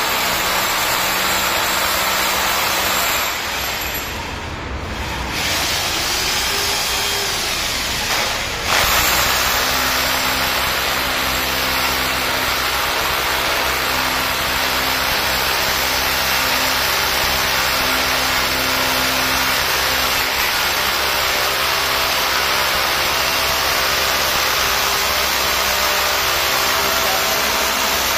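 Corded hammer drill boring into a concrete ceiling, a continuous loud drilling noise. It eases off for a couple of seconds about three and a half seconds in, then runs steadily and louder again from about nine seconds on.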